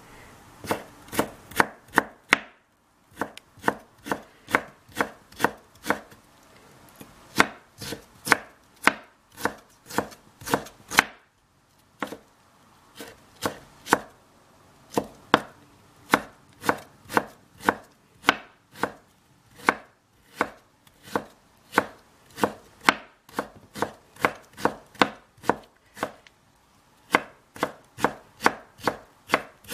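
A cleaver-style chef's knife cutting stacked raw potato slices into thin strips on a wooden cutting board. Each stroke makes a sharp knock as the blade meets the board, about three a second, in runs broken by a few short pauses.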